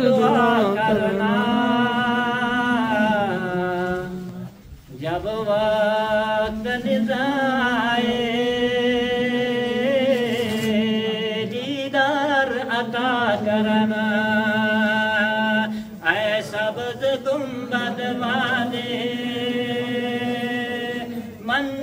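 A man's voice chanting a naat into a microphone in long, drawn-out, wavering phrases. There are short breaks about five seconds in and about sixteen seconds in.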